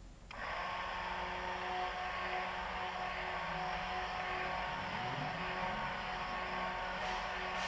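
Hand-held immersion mixer switching on about a third of a second in and running steadily, its blade churning a white silica slurry in a stainless steel pot.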